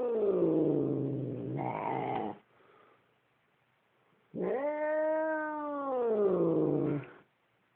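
Domestic cat giving long, drawn-out growling yowls, a hostile warning: one call slides down in pitch and turns rough before breaking off a couple of seconds in, and after a pause a second long yowl rises, holds and falls away.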